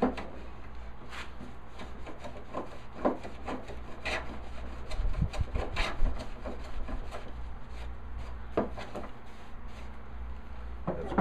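Smoothing plane working a walnut board: irregular short scraping strokes of the plane iron across the wood, with a few low knocks about halfway through.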